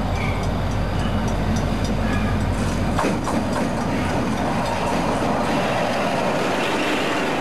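V/Line diesel locomotive passing close by at speed. Its low engine hum gives way about three seconds in to the rushing noise of wheels on the rails as the locomotive goes by.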